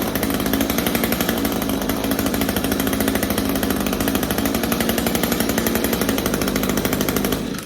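Echo SRM string trimmer's two-stroke engine running steadily on a new NGK spark plug, which cured the no-start that the off-brand plug from the carburetor kit caused. It cuts off abruptly near the end.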